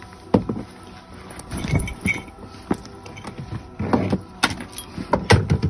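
Scattered knocks, sharp clicks and rustling of a person climbing into a camper van and settling into a seat, with a walking stick and a book in hand; the loudest knocks come near the end.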